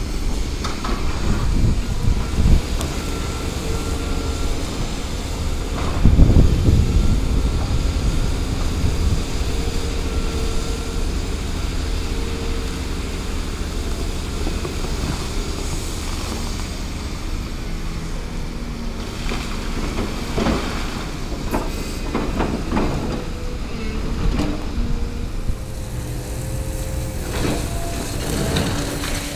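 Volvo tracked excavator working on a brick building, its diesel engine and hydraulics running steadily while bricks and rubble crash down from its bucket. The biggest crash comes about six seconds in, with more knocks and crashes around twenty seconds in.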